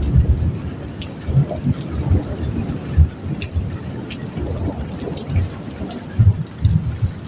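Heavy rain on a metal roof: a steady wash of water with many irregular dull thuds and scattered sharp drip ticks.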